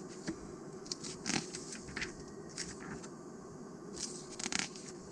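Magazine pages being handled and turned: a few short papery rustles and crinkles scattered through, with a cluster near the end, over a steady low hum.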